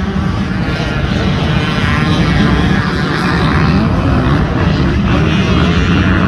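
Several dirt bike engines revving and running at once on a motocross track, their pitches rising and falling as they overlap in a loud, continuous sound.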